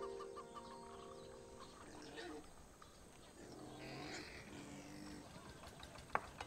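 A held background-music chord fading out, followed by faint, quiet outdoor background sound with a few sharp clicks near the end.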